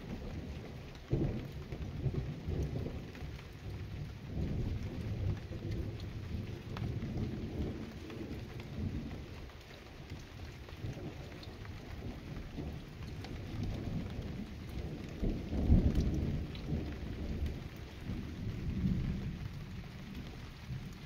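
Thunder rumbling on and off in rolling swells, loudest about fifteen seconds in, with light rain beneath it.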